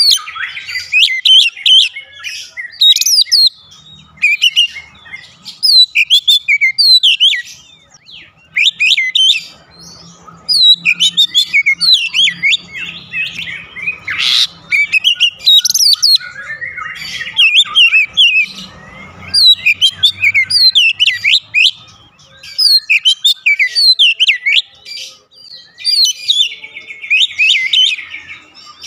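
Oriental magpie-robin (kacer) singing in full, lively song: rapid, varied phrases of high whistles and chirps in bursts, broken by short pauses.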